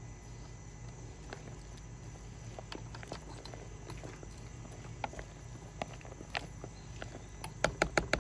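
Corn salad being stirred in a plastic container, first by hand and then with a small wire whisk: soft, scattered clicks and rustles of corn kernels, then a quick run of sharp clicks near the end as the whisk works against the container.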